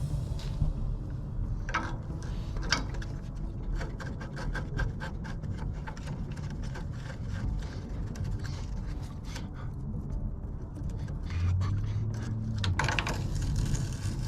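Light metallic clicking and scraping of a wrench working a new hydraulic quick coupler into its threaded fitting on a compact tractor. A couple of sharper knocks come first, then a quick run of small clicks, about six a second, for several seconds in the middle.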